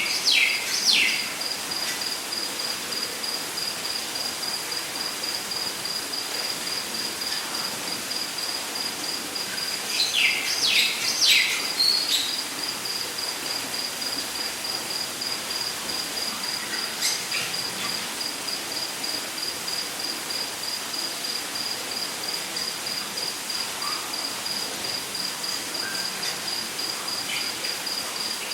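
Rainforest ambience: an insect, such as a cricket, trills steadily at a high pitch over a constant background hiss. A bird gives a run of three quick falling whistles at the start, a run of four about ten seconds in, and a few faint calls later.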